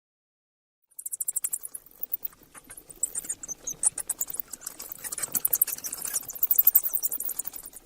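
Mouse squeaking: a rapid, high-pitched run of squeaks and chittering starting about a second in.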